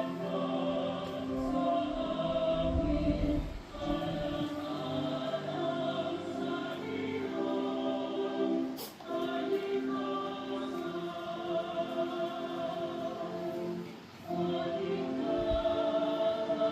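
Choir singing a hymn in held chords, with short breaks between phrases about three and a half, nine and fourteen seconds in.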